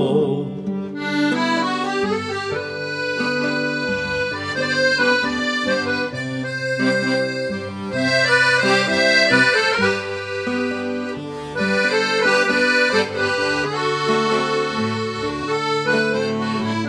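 Accordion playing an instrumental break in a havanera: a lilting melody over sustained, changing bass notes, with no singing.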